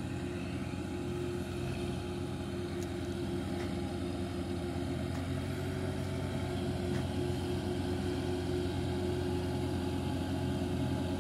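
Belarus tractor's diesel engine running steadily at low revs while it pulls a trolley heavily loaded with sugar cane, slowly growing louder as it comes closer.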